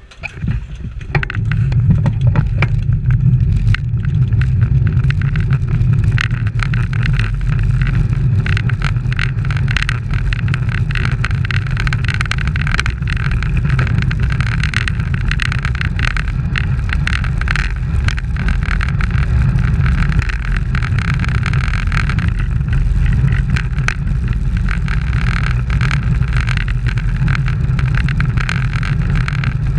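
Wind buffeting a bike-mounted camera's microphone, over the rattle and ticking of road bicycles riding in a pack. The noise comes up sharply about a second in as the group rolls off from a standing start, then holds steady.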